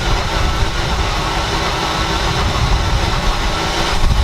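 A Ford Mustang's 4.6 V8 being cranked by the starter, spinning over fast and evenly without firing because the engine has zero compression after its head gasket and rod bearing failure. The cranking stops at the very end.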